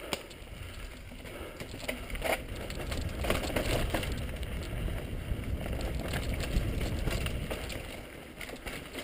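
Mountain bike rolling down a rough dirt singletrack: a steady low rumble of tyres on dirt with scattered clicks and knocks of the bike rattling over bumps and small steps, picked up by the rider's action camera. It grows louder from about three seconds in and eases off near the end.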